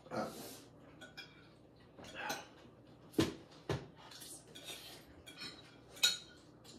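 Metal forks scraping and tapping on plates as people eat, with scattered sharp clinks: two just after three seconds in and one about six seconds in.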